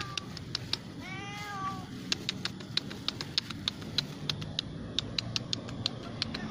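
A cat meowing: one drawn-out meow about a second in that rises and then falls in pitch. After it comes a run of quick, sharp clicks, several a second.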